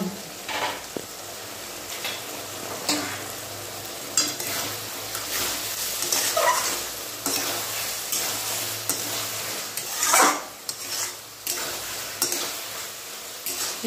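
Flat metal spatula stirring and scraping a thick potato and drumstick curry around a metal karai, in repeated strokes over a steady sizzle of the curry frying.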